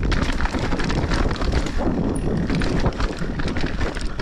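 Mountain bike riding down a rocky dirt trail: tyres rolling over dirt and rock, and the bike rattling and knocking over the bumps, with wind buffeting the rider-mounted microphone.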